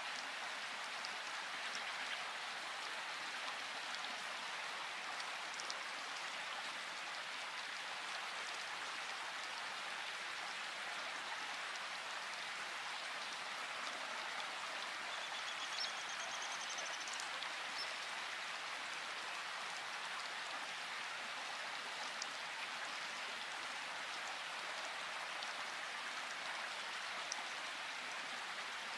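Steady, even hiss like falling rain, with a few faint ticks and a brief faint high warble about halfway through.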